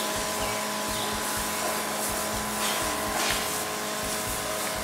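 Electric backpack sprayer's pump running with a steady hum while the wand hisses out a spray of liquid.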